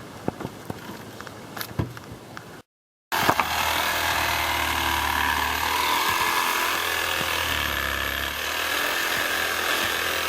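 A few faint clicks and knocks, then, about three seconds in, a power saw starts up abruptly and runs steadily, cutting through tree wood, its motor pitch wavering slightly under load.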